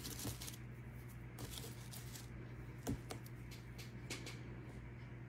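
Faint rustling and a few soft crackles of paper and dried flower stems being pressed into place by hand, over a steady low hum.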